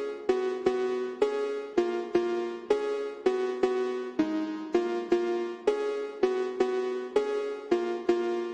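Intro of a slowed-and-reverb phonk track: a repeating melody of short, sharply struck pitched notes, about two to three a second, each ringing out, with no drums, bass or vocals yet.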